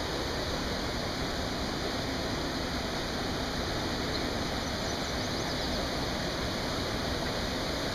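Steady, even rushing noise with no distinct events, like running water or wind on the microphone.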